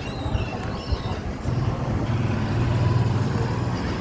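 Sightseer boardwalk tram car running as it rolls past: a steady low hum that swells louder about halfway through.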